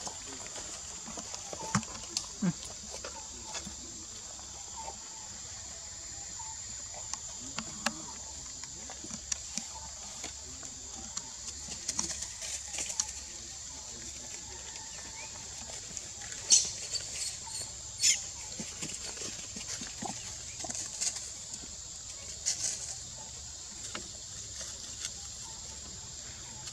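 Scattered light rustles and crackles of dry leaf litter as monkeys move about on it, with a few louder crackles in the second half, over a steady high-pitched hum.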